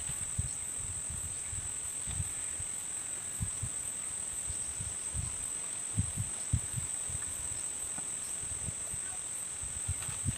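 Steady high-pitched chorus of insects, with a faint even pulsing above it, and soft low bumps now and then.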